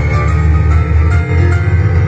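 Boogie-woogie piano played on a Casio digital keyboard: a busy, driving bass line under the right hand's chords, between sung lines.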